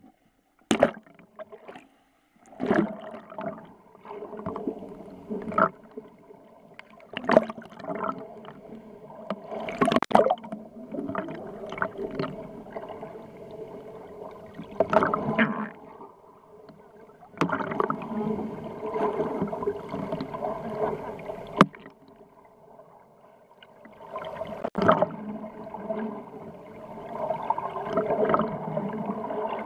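Underwater audio from a camera held just below the surface: water gurgling and sloshing around it in uneven surges, with a steady underlying hum and many irregular sharp knocks.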